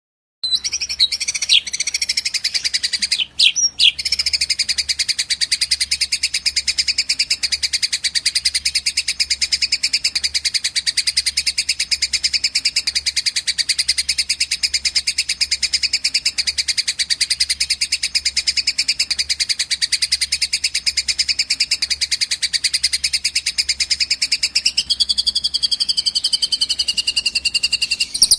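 Songbird singing a very fast, unbroken high trill, with a brief break about three seconds in and a shift in pitch near the end.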